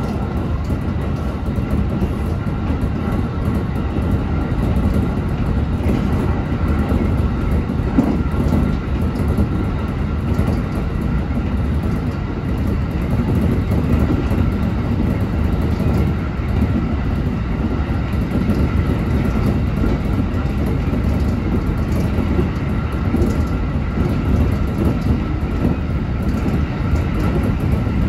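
Electric local train running between stations, heard from inside the front car. A steady rumble of wheels on rail, with faint thin steady tones above it and light clicks now and then.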